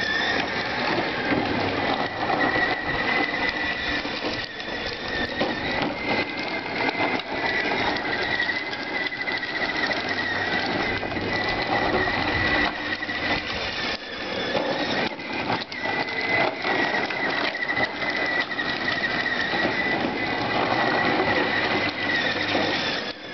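Battery-powered ride-on toy ATV's electric motor and plastic gearbox whining steadily at a high pitch as it drives, with its hard plastic wheels rolling over concrete.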